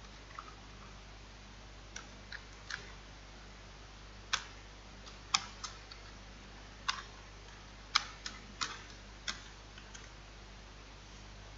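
Irregular, sparse clicks of computer keys and a mouse, about a dozen sharp taps at uneven spacing, over a faint steady electrical hum.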